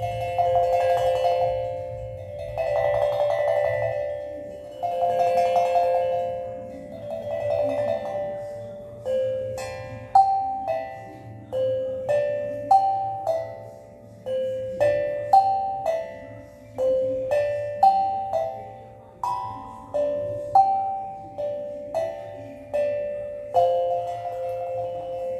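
Steel tongue drum playing a slow melody of ringing notes. At first each note is struck rapidly over and over in rolls of about two seconds. From about nine seconds in, single notes come one or two a second, each left to ring and fade.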